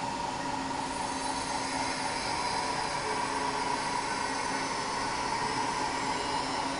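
Hankook Hanturn 95M CNC live-milling lathe running: a steady machine hum with a steady high whine over a bed of noise.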